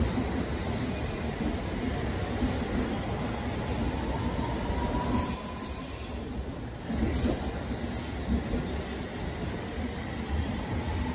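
London Underground train pulling out of the platform: a steady rumble of wheels on rail, with a whine that rises in pitch as it gathers speed. Short high wheel squeals come a few seconds in and again midway.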